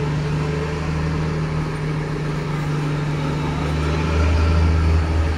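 Diesel generator set in a train's power car running just after start-up, a steady low drone that gets louder about four seconds in.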